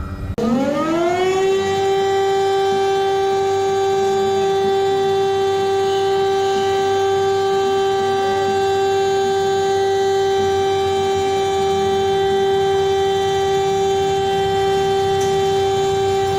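Civil defense siren winding up in pitch over about a second, then holding one steady, rich tone.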